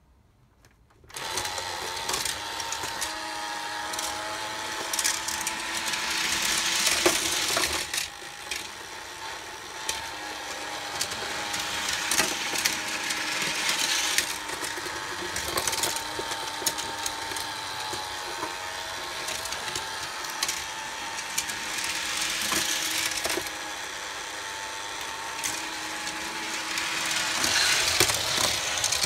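Small battery motor of a Tomica toy highway set's lift starts about a second in and whirs steadily as it carries die-cast toy cars up the ramp, with plastic rattling swelling louder every seven seconds or so as the cars roll along the plastic roadway.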